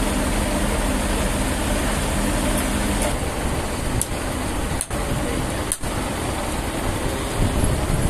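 Engine running steadily: a loud, continuous noise with a low hum, dipping out briefly twice a little past the middle.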